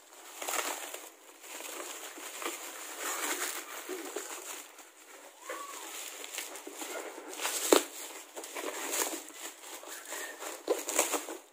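Plastic bubble wrap crinkling as it is pulled and peeled off a small cardboard box, with one sharp snap about two-thirds of the way through.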